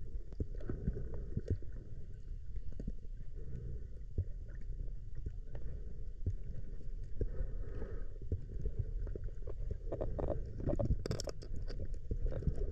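Muffled underwater rumble recorded through a diving camera's housing, with scattered small clicks and knocks that grow busier about ten seconds in.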